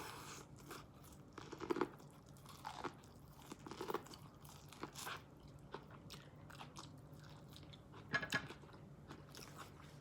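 A person eating seafood boil close to the microphone: irregular chewing and crunching with sharp clicks and small cracks. The loudest cluster comes about eight seconds in.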